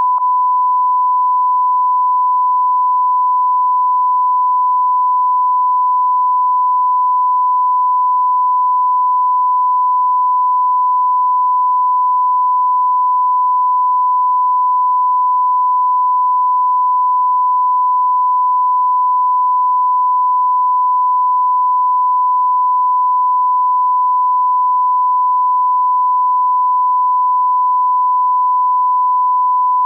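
Continuous 1 kHz sine-wave test tone accompanying a TV test pattern, a single pure steady pitch at constant level.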